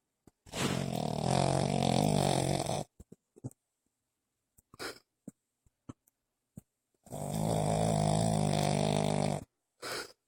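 Sleeping puppy snoring: two long snores, each about two and a half seconds and about six seconds apart, with short, quieter breath sounds between them.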